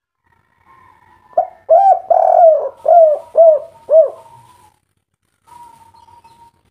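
Spotted dove (tekukur) cooing a 'kuk 3' song phrase: a quick run of about six loud coos, each rising and falling in pitch, starting about a second and a half in. A fainter, steadier note comes in briefly near the end.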